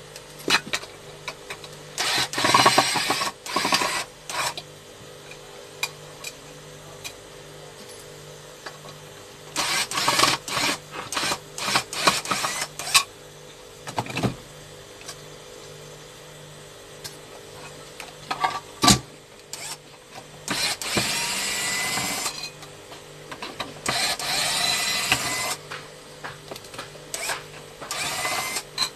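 Cordless electric screwdriver whirring in about five short runs of a few seconds each, driving screws into the aluminium case of a 1200 W pure sine wave inverter. A few clicks and knocks from handling the case come between the runs.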